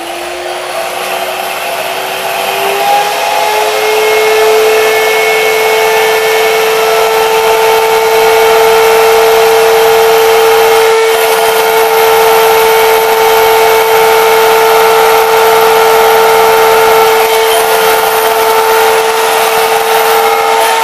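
Electric hand mixer whipping egg whites in a glass bowl: a steady motor whine with the whisks churning, rising in pitch and growing louder over the first few seconds, then holding level as the whites turn to foam.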